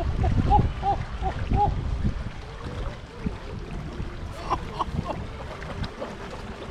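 Wind buffeting the microphone with a heavy low rumble for the first two seconds, under a run of short, rising-and-falling vocal sounds from a person, about three a second. After that only fainter wind noise and a few brief voice fragments.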